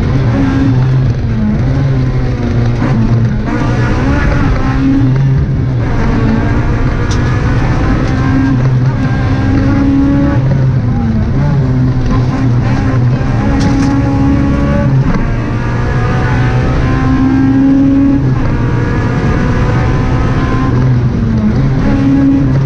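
Honda Civic Type R rally car's four-cylinder engine heard from inside the cabin, driven hard on a tarmac stage. It revs up through each gear and drops at the changes, over constant road and tyre noise.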